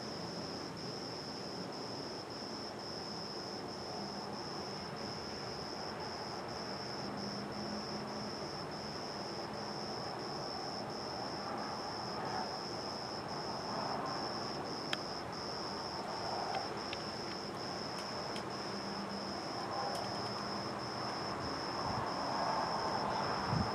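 Crickets chirping: a steady high-pitched trill that breaks about twice a second, over a low, even background rumble.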